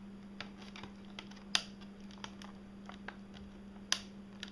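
Small plastic clicks and ticks, with two sharper snaps about one and a half and four seconds in, as the plastic bottom access cover of an Acer Aspire One D257 netbook is pried at its clips. A steady low hum runs underneath.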